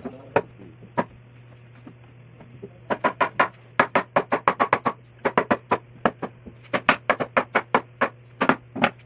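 Sharp knocks of a hammer striking the wooden bench: two single blows, then from about three seconds in, quick runs of rapid taps, about five a second, in several bursts.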